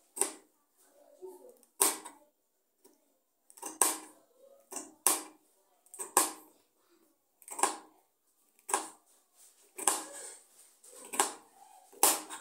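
Kitchen knife chopping okra pods, each cut ending in a sharp knock on the surface below; about ten knocks, irregularly spaced about a second apart.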